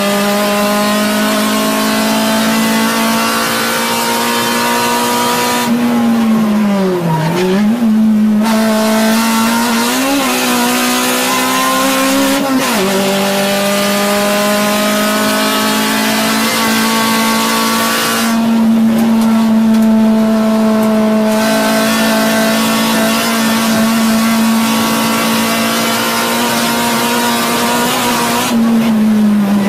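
Acura Integra Type R's four-cylinder VTEC engine, heard from inside the cabin, running hard at high revs. The pitch dips sharply and climbs back about seven seconds in and again near the end, and steps down once at about twelve seconds.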